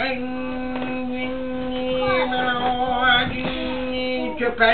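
Chanted music: one long, steady held note with a winding melodic line rising and falling over it. The held note breaks off shortly before the end.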